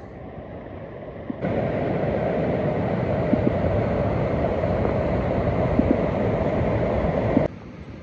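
A steady, loud rushing noise that cuts in abruptly about a second and a half in and cuts off just as abruptly near the end, with a few faint ticks in it.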